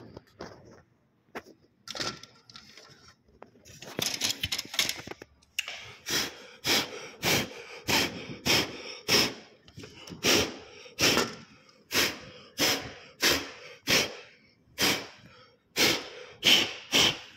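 Scattered rustling and handling noise, then from about six seconds in a regular run of short breathy puffs of air, about three every two seconds.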